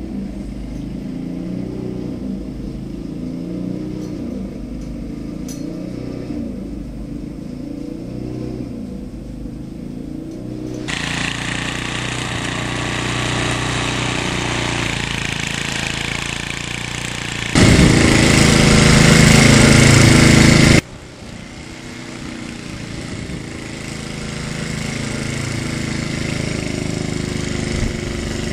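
Snowblower engine running, dull and muffled at first as if heard through window glass, then much brighter and clearer from about eleven seconds in. It gets sharply louder for about three seconds near the middle, then drops back to a steady lower run.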